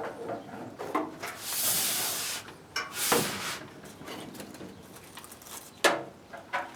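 Styrofoam bits being cleaned off a stainless steel cabinet panel: a hissing rush about a second and a half in, a shorter one a little later, and a sharp clack of metal near the end.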